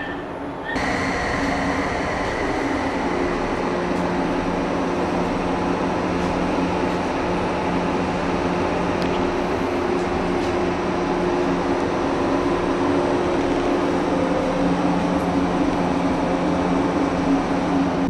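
Steady hum of a JR 103 series electric train car's on-board equipment while the car stands with its doors open, heard from inside the car, with several held tones. It starts abruptly about a second in.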